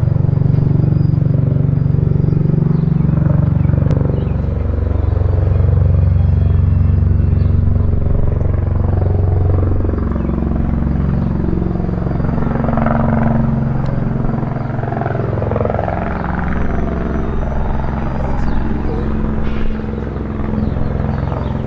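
V-22 Osprey tiltrotor flying in low, its prop-rotors and engines making a loud, steady low drone that shifts slightly in pitch.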